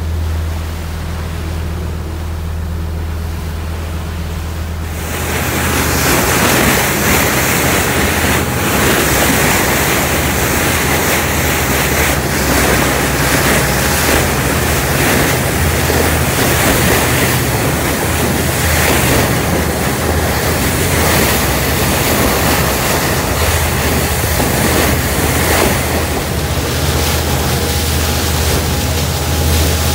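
A boat's engine runs with a steady low drone. About five seconds in, a loud rush of wind and water joins it and continues, with wind buffeting the microphone.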